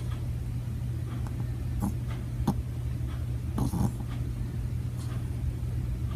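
Sleeping dog snoring, with short sharp breath sounds about two seconds in and a louder snore from about three and a half to four seconds in, over a steady low hum.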